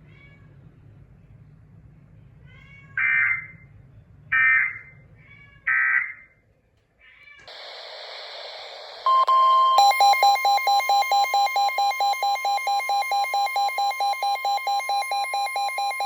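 Emergency Alert System header: three short screechy digital data bursts about a second and a half apart, announcing a new alert. After a burst of hiss, a loud electronic attention tone starts about nine seconds in, pulsing about four times a second.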